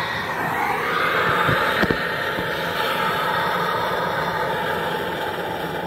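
Coleman Exponent Denali backpacking stove burning at a full blue flame under a metal can, a steady hiss of the burner flame. A single knock about two seconds in.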